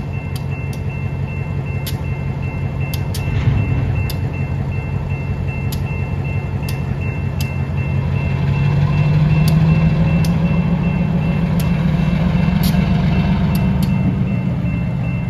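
Diesel switcher locomotive's engine running as it moves a hopper car, a steady low hum that grows louder about eight seconds in as it throttles up. Scattered sharp clicks sound throughout.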